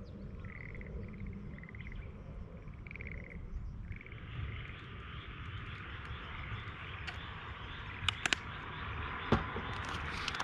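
Frog croaking in a series of short, pulsed calls for about the first four seconds. Then a steady hiss sets in and carries on, with a few sharp clicks near the end.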